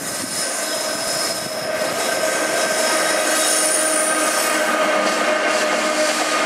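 Freightliner electric locomotive and loaded container wagons running past on the track, growing louder over the first couple of seconds and then holding steady. A steady high whine sits over the rumble of the wheels.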